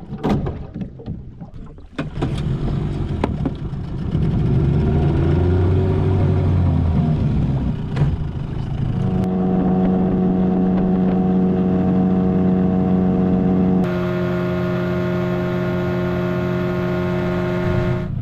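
A boat motor running under way, after a few knocks in the first two seconds. It picks up about two seconds in and climbs in revs, then holds a steady note from about nine seconds on. The note changes abruptly near the end.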